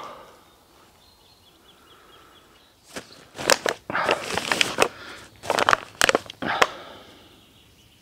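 Bursts of rustling and crackling as a backpack is handled and packed on a groundsheet over dry leaves. They start about three seconds in and stop near the end. A faint bird chirps in the quiet opening seconds.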